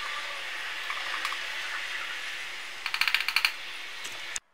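Steady hiss of room noise. About three seconds in comes a quick rattle of about eight light clicks: a set of plastic measuring spoons clattering as they are picked up.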